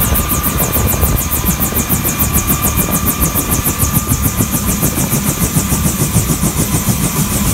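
Helicopter running close by: a fast, even rotor beat over a steady high turbine whine and a low rumble.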